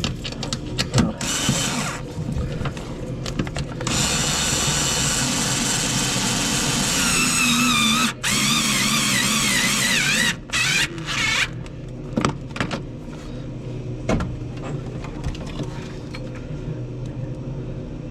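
Handheld power drill running for several seconds, its pitch wavering up and down as the trigger speed changes, with brief stops. Scattered clicks and knocks of tool handling come before and after it.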